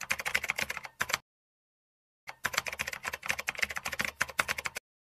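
Rapid computer-keyboard key clicks, a typing sound effect laid under text being typed out on screen. They come in two runs: about a second at the start, then dead silence, then about two and a half seconds of clicks from a little past two seconds in.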